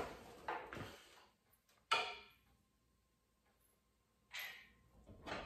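Faint, sparse handling noises from work on the engine with a breaker bar and cam sprocket holding tool: a sharp knock about two seconds in and a short rustling hiss near the end, with near silence between.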